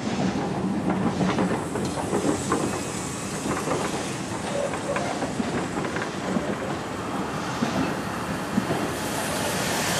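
Steam-hauled train running along the line, its wheels clicking and clattering irregularly over the rails. A hiss grows louder near the end.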